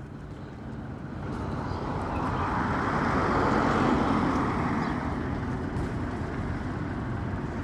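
A road vehicle passing by, its noise swelling to a peak about four seconds in and then slowly fading.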